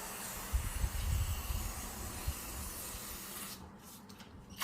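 Aerosol can of carburetor cleaner spraying in one long continuous hiss that cuts off about three and a half seconds in, with a few low thuds underneath in the first second and a half.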